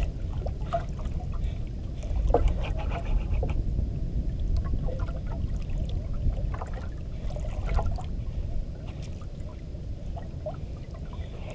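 Water lapping and splashing around a small outrigger boat over a steady low rumble, with scattered light knocks.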